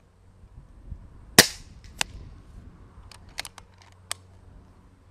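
A single shot from a Kral Puncher Breaker .22 pre-charged pneumatic air rifle fitted with a silencer, a sharp crack about a second and a half in, followed by a sharp click and then several lighter clicks.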